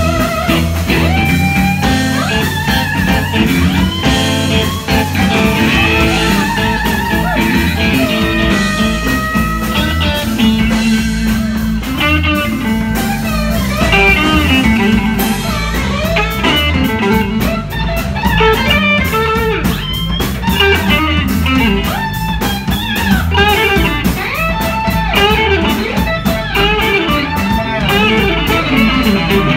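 Live blues-rock band playing, with electric guitars over bass and drums; a wavering, bending lead line runs throughout.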